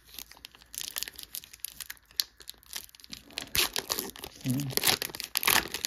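The crinkly foil wrapper of a Pokémon Lost Origin booster pack being torn open and crumpled by hand: a dense crackle that gets louder about three and a half seconds in.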